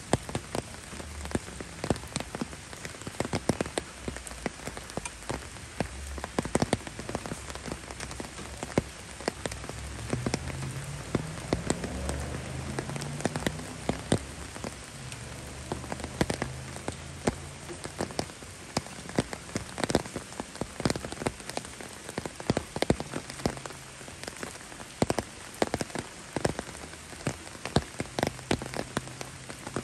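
Steady rain falling, with frequent sharp taps of individual drops landing.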